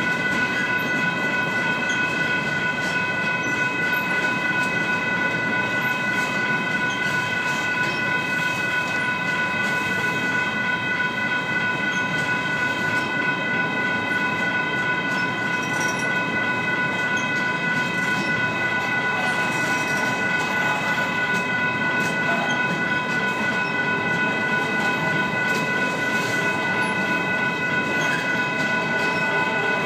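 Freight train rolling past, its wheels running over the rails, with a steady high-pitched ringing tone held over it throughout.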